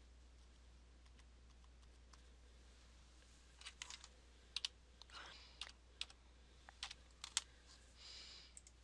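Typing on a computer keyboard: about a dozen quick key clicks starting about three and a half seconds in, over a faint low hum.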